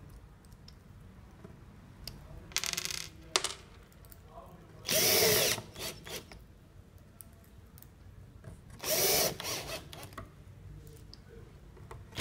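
Cordless drill-driver driving screws into wood. It runs in several short bursts with pauses between them, and the motor pitch rises as each burst starts.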